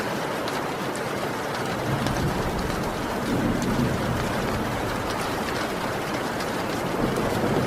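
Heavy rain falling steadily, with scattered sharp drop ticks. A low rumble swells about two seconds in and fades again a few seconds later.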